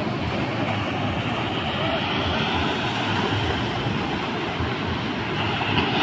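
Ocean surf washing up a beach as a steady rushing, with a wave breaking and foaming up the shore near the end, louder there.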